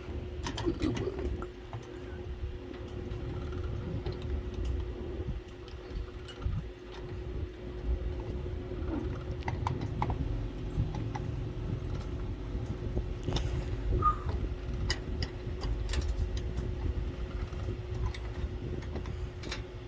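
Scattered light clicks and taps of computer hardware being handled as a CPU cooling fan is fitted onto a motherboard, over a steady low hum.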